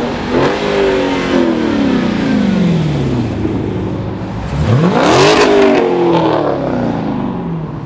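Two cars accelerating hard past, one after the other: each engine revs up sharply, then drops in pitch as it goes by. The second, louder pass is a Dodge Challenger.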